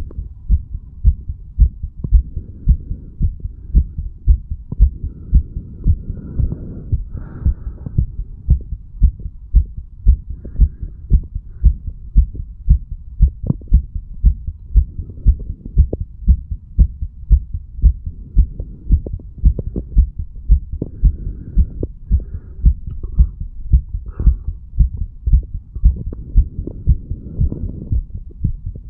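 A healthy adult man's heartbeat picked up over the mitral valve area of the chest: steady pairs of low thumps, a little over one beat a second, over a low hum. The valves open and close cleanly.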